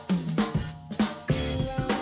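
Outro music with a steady drum-kit beat; longer held notes come in about halfway through.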